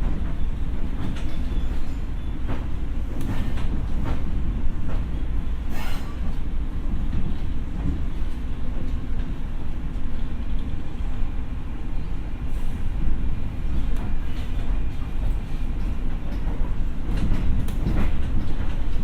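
A Tokyo Metro 6000 series electric train running, heard from inside the car: a steady low rumble of wheels on rail, with sharp clicks every second or few as the wheels pass rail joints.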